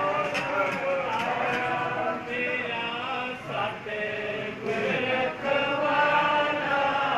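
A Sikh congregation chanting together in unison, with many voices holding drawn-out notes. Short sharp clicks are scattered through the chanting.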